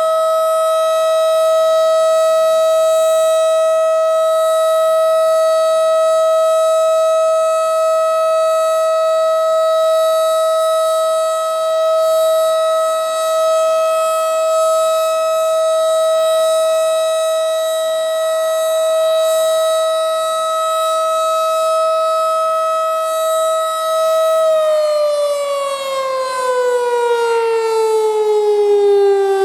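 Federal Signal STH-10 12-port rotating siren sounding a steady alert tone, then winding down with a smoothly falling pitch for the last five seconds or so. It gave the steady alert signal, though the wavering attack signal was meant to sound.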